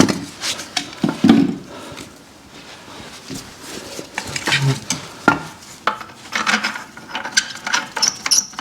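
Hand tools and metal suspension parts clinking, tapping and scraping in scattered, irregular knocks.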